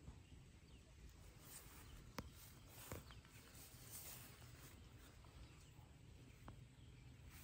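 Near silence: faint outdoor ambience with three soft clicks.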